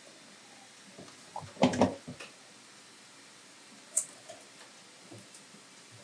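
Crackling snaps and tearing of the green calyx being pulled off an eggplant's stem by hand, loudest in a short crackly cluster about two seconds in, with a sharp click about four seconds in and a few faint ticks after.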